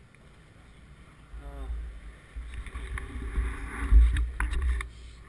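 Uneven low rumble of wind and movement on a helmet-mounted camera's microphone, starting about a second and a half in and loudest near the middle, with a few knocks in the second half.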